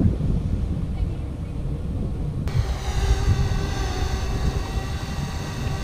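Wind rumbling on the microphone, then about two and a half seconds in the steady drone of an airboat's engine and propeller comes in suddenly and holds.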